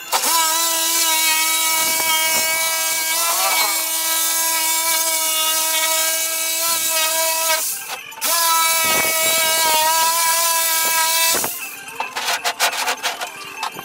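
Corded reciprocating saw (Sawzall) running with a steady whine as it trims the edge of a fiberglass-skinned foam deck panel. It stops about seven and a half seconds in, restarts a moment later, and cuts off about three-quarters of the way through, followed by a few clattering knocks as the panel is handled.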